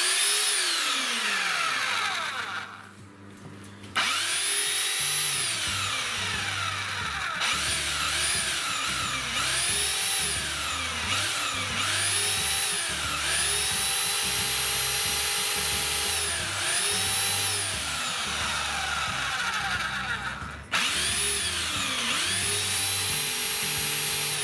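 Power drill boring into chamotte firebrick with a 4 mm bit, its motor whine rising and falling as the trigger is squeezed and eased over and over. It stops briefly about three seconds in. The bit is going into the brick only slowly.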